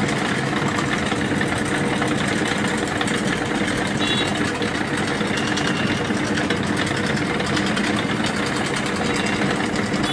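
Motorised scroll saw running steadily, its thin blade stroking rapidly up and down as it cuts a small round hole through a panel.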